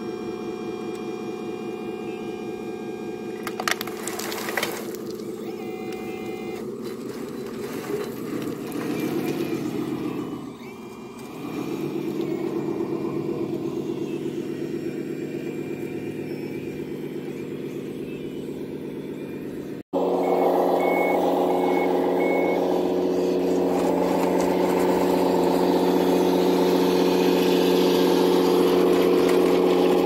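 Simulated diesel engine sound from an RC model Volvo A40G dump truck's sound module, running steadily and revving up and down about ten seconds in. After a sudden cut about two-thirds through, a louder simulated engine from an RC wheel loader, with four short reversing beeps just after the cut.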